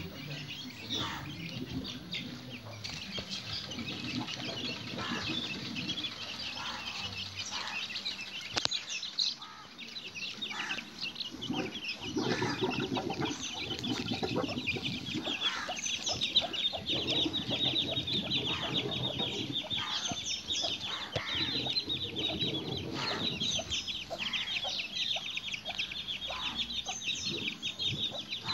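A hen clucking among her chicks, which peep almost without pause. The chicks' high peeping grows denser and louder from about halfway through.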